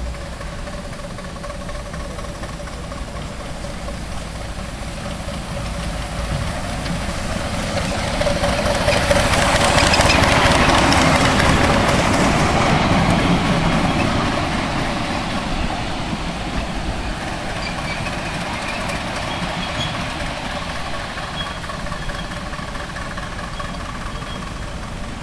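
7¼-inch gauge miniature train approaching, passing close by and running away: the sound of its locomotive and wheels on the rails rises to a peak about ten seconds in, then fades.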